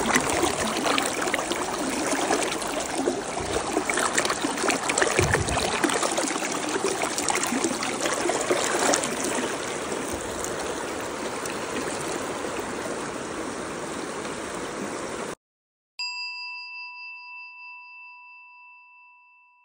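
Shallow river water rushing and splashing over rocks, then cutting off suddenly about fifteen seconds in; a moment later a single chime rings and fades away over about four seconds.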